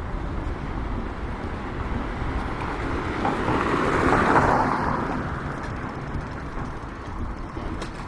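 A vehicle passing by on a street: a wash of road noise swells to a peak about four seconds in, then fades away, over a steady low street rumble.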